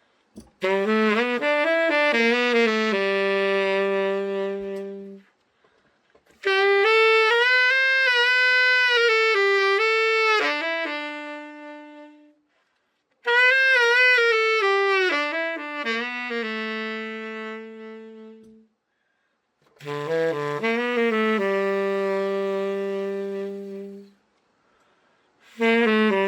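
Selmer Super Action 80 Series II tenor saxophone, freshly overhauled, played in four short melodic phrases with pauses of about a second between them, each phrase ending on a held note; a fifth phrase begins near the end.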